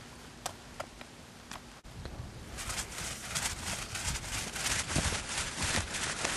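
Paint roller loaded with roof-sealer coating being rolled over asphalt shingles: a dense, wet crackling rasp that starts about two and a half seconds in, after a few light isolated clicks.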